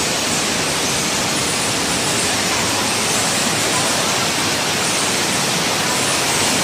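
Cave stream water rushing over and between boulders: a steady, even rush.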